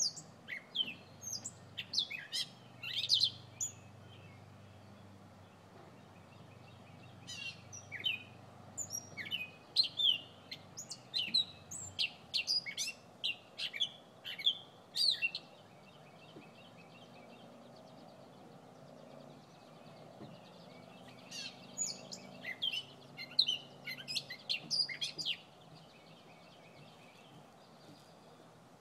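A small bird chirping: quick, sharp, high-pitched chirps in three bouts of several seconds each, with short pauses between.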